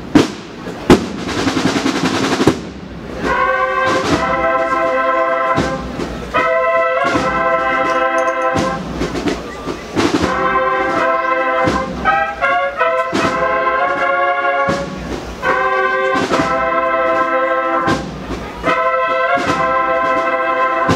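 Banda de cornetas y tambores playing a Holy Week processional march: sharp drum strikes in the first few seconds, then full chords of cornets and low brass in phrases with brief breaks, with a quick run of notes midway.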